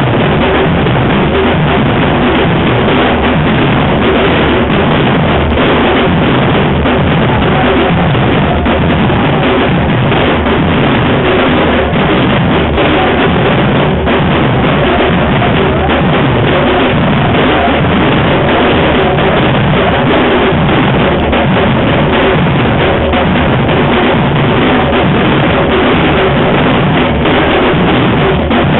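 Afro-Brazilian street percussion band playing a loud, continuous drum groove.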